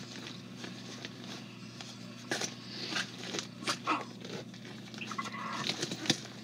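Rummaging through belongings by hand in search of a hairbrush: scattered clicks, light knocks and rustling over a steady low hum.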